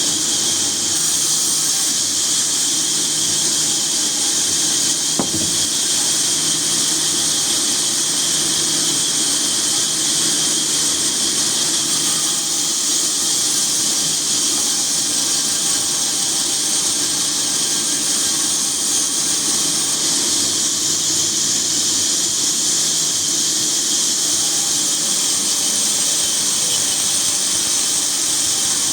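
Woodworking machine running steadily with an even, high hiss and a low hum underneath; a faint knock about five seconds in.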